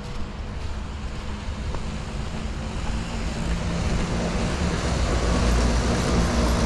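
Road traffic: a motor vehicle approaching, its low rumble and tyre noise growing steadily louder through the second half.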